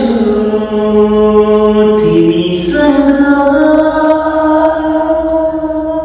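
A man singing unaccompanied, holding long drawn-out notes and changing pitch twice partway through.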